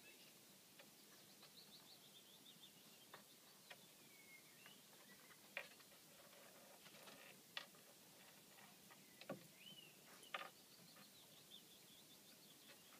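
Faint birdsong: runs of thin chirping notes, one near the start and another near the end. A few soft clicks and one dull thump come in between.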